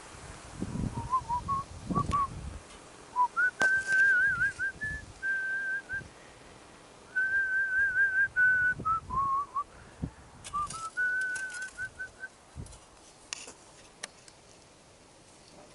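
A person whistling a tune, one clear wavering note line that steps between pitches in several phrases over about eleven seconds, then stops. Soft rustling and scattered knocks sit underneath.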